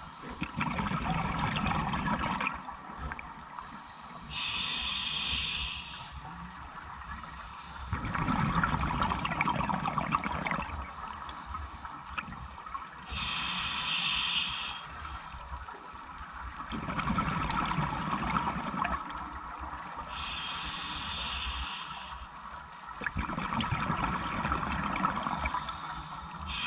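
Scuba diver breathing through a regulator: short hissing inhalations alternating with longer bubbling exhalations, about one breath every eight seconds.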